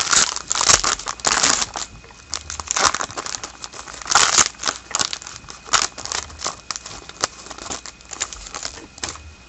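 Upper Deck hockey-card pack wrappers crinkling and cards rustling as they are handled, an irregular run of crackly rustles and sharp little clicks.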